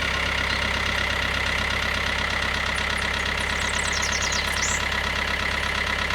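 An engine idling steadily at an even pitch, cutting off abruptly at the end, with faint bird chirps in the background.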